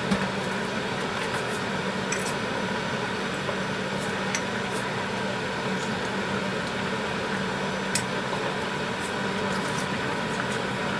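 Pot of tteokbokki simmering on the stove under a steady hum and hiss, with a few sharp clicks as a wooden spoon touches the pot.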